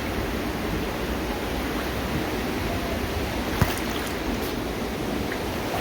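Floodwater rushing steadily, with one brief knock about three and a half seconds in.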